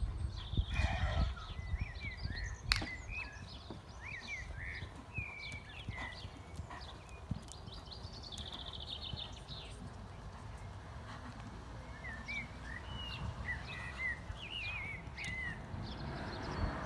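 Small birds singing in short rising and falling chirps, with a rapid trill about eight seconds in, over a low rumble that is loudest in the first two seconds. A horse's hoofbeats on arena sand are faint beneath, and there is one sharp click about three seconds in.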